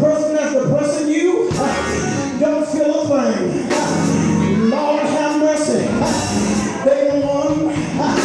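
A preacher's amplified voice in a half-sung, chanted delivery, holding and bending long pitched notes, over church band music with drums and cymbal hits.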